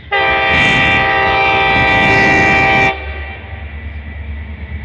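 Air horn on the leading cab car of an approaching Metra push-pull express train, sounding one long, loud chord of several notes for about three seconds before cutting off sharply. It is followed by the low rumble of the train drawing nearer.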